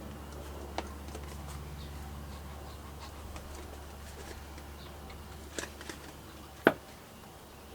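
Small objects being handled at a workbench: light scattered taps and clicks, then one sharp click or knock about a second before the end, over a steady low hum.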